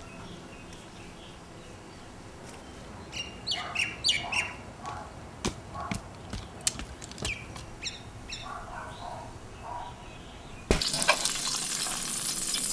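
Birds chirping and calling in short, scattered phrases, then near the end a sudden, louder sizzle of meat searing in hot oil in a pan.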